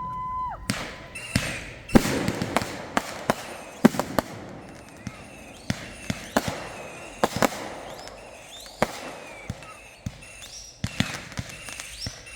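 Consumer fireworks going off: an irregular string of sharp bangs and crackles, the loudest about two and four seconds in. A steady whistling tone stops about half a second in.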